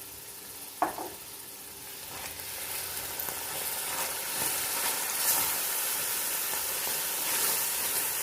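Tomato-onion masala with the leftover chicken marinade sizzling in a hot pot while being stirred, getting louder from about two seconds in as the paste cooks down dry. A single clink about a second in.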